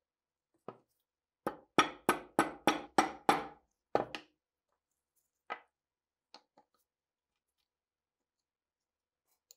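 Mallet strikes on a steel rifle barrel: a quick run of about seven sharp hits, roughly three a second, each with a brief metallic ring, followed by a few lighter knocks.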